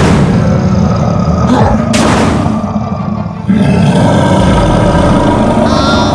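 Cartoon monster roaring and growling sound effects with sharp whoosh-impacts at the start and about two seconds in. About three and a half seconds in it gives way to a louder, steadier effect with high chiming tones near the end.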